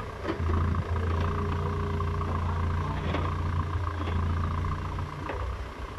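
Komatsu WB97S backhoe loader's diesel engine running steadily with a low hum while the rear digging arm works; it picks up about half a second in. A few light knocks sound over it.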